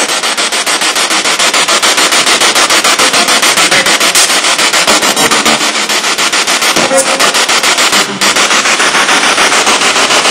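Spirit box sweeping rapidly through radio stations: loud, choppy static that pulses many times a second, with short snatches of voices caught between the bursts.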